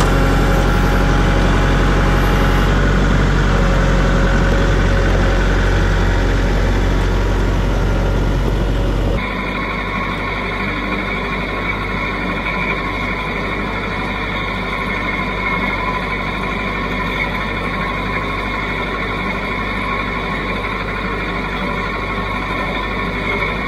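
Kubota tractor's diesel engine running steadily while it carries a tote of firewood on pallet forks. For the first nine seconds it is a deep, loud drone. Then it cuts abruptly to a thinner engine sound with a steady high whine.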